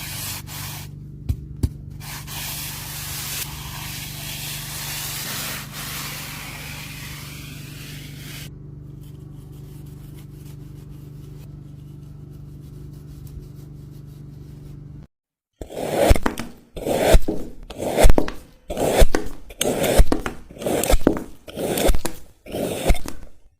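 A steady low hum with hiss for about fifteen seconds. After a brief silence come about eight rhythmic rubbing strokes, roughly one a second.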